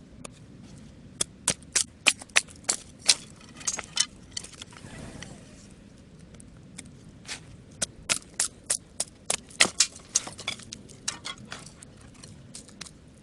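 Dry wood cracking and snapping in sharp, irregular pops, in two runs with a lull in the middle.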